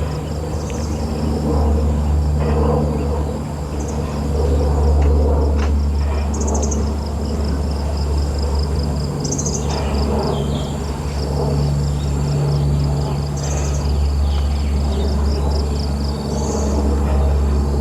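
Outdoor ambience: a steady low rumble under a fast, even, high-pitched pulsing animal call that runs throughout, with short higher calls repeating about every two seconds.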